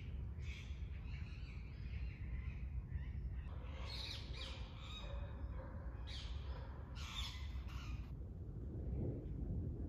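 Wild birds calling among park trees: several bouts of short, high calls and chirps, over a steady low rumble.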